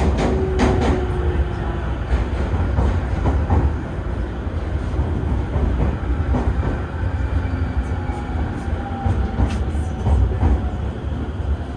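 Electric commuter train running, heard from inside the car: a steady low rumble of wheels on rail with scattered sharp clicks over the rail joints and faint whining tones that come and go.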